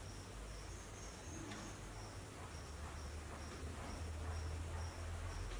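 A chirping insect, a high thin chirp repeating evenly about twice a second, over a steady low hum.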